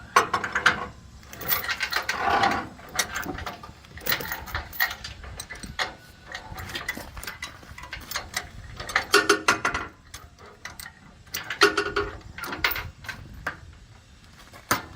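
Ratchet load binder being cranked to tighten a tie-down chain: quick metallic ratchet clicks and chain clanks in several spurts, with short pauses between them.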